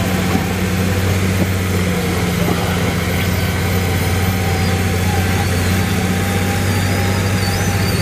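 Diesel engine of a New Holland farm tractor working steadily under load as it drags a tractor-pulling sled on a chain, its note held at constant revs.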